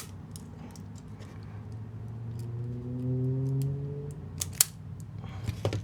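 Sharp clicks and taps of small metal parts being handled on a workbench, the loudest about three-quarters of the way through, over a steady low hum.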